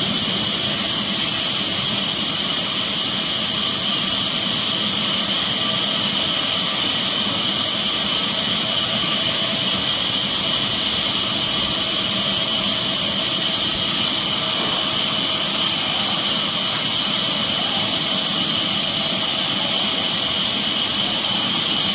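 A horizontal band sawmill running steadily, with a continuous loud machine noise and hiss.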